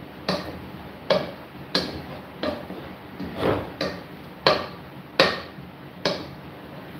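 A black hand potato masher pressing boiled sweet potatoes in a stone-coated non-stick pot, knocking on the pot's bottom about ten times, roughly once every two-thirds of a second.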